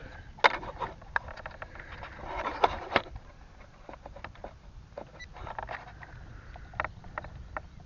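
Wind rumbling on the microphone, with scattered irregular clicks and a brief louder rustle a few seconds in.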